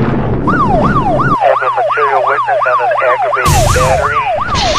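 Electronic siren sound effect yelping, its pitch sweeping up and down about three times a second. A loud rushing whoosh runs under it for the first second or so, and another comes about three and a half seconds in.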